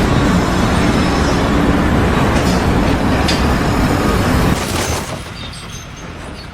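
Loud, steady rumble of a heavy vehicle that drops away about four and a half seconds in, leaving a quieter noise.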